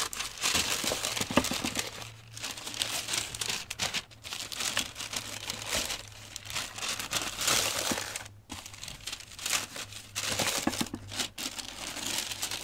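Tissue paper crinkling and rustling as hands unfold the wrapping inside a shoebox, in bursts with a few short pauses.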